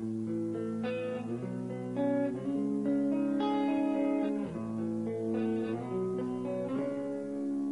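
Slow guitar intro of a metal song: picked notes and chords ringing out and overlapping, with no drums or vocals.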